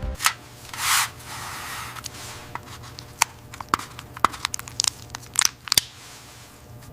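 Irregular sharp crackles and snaps, with a short rustling, tearing burst about a second in, over a low steady hum.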